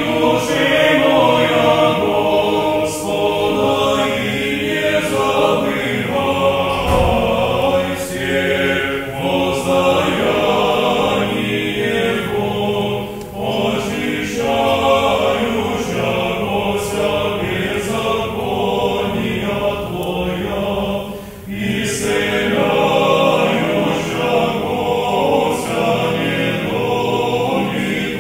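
Men's choir singing Orthodox liturgical chant a cappella, sustained chords sung in phrases with short breaks between them.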